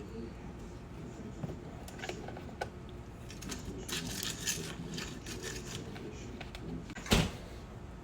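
Household handling noises: scattered light clicks and a short run of rattling clatter around the middle, then a single sharp knock about seven seconds in, the loudest sound.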